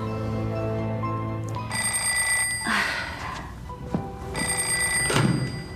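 Landline telephone ringing twice, each ring about a second long, over held background music notes at the start.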